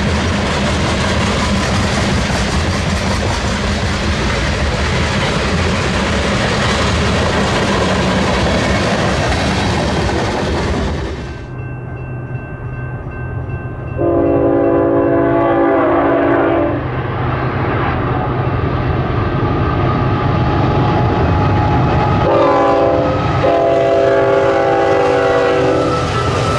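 A passing train with steady wheel-and-rail noise, giving way abruptly about eleven seconds in to a lower engine rumble. A locomotive horn then sounds its chord of several notes: one long blast, then a short one and another long one near the end.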